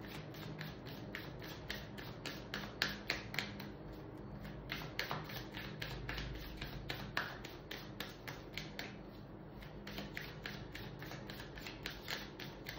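Tarot cards being shuffled by hand: a quick, irregular run of light card clicks and taps, several a second.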